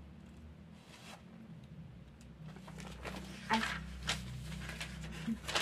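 Soft paper rustling and scraping as the glossy pages of a printed cosmetics catalog are handled, in short bursts over a low steady hum.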